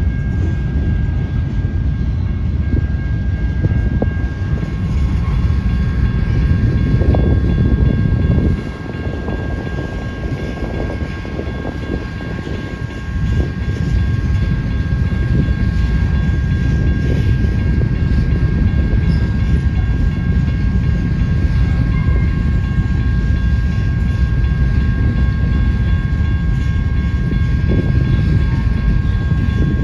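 Train rolling past, a heavy rumble of cars on the rails with a steady high-pitched whine over it. It eases off for a few seconds about nine seconds in, then picks up again.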